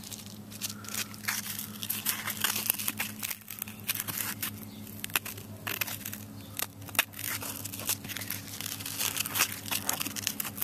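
Close-up handling noise of fingers rubbing and turning a fibrous filter pad from a cut-open refrigerant filter drier: irregular rustling with many small clicks. A steady low hum runs underneath.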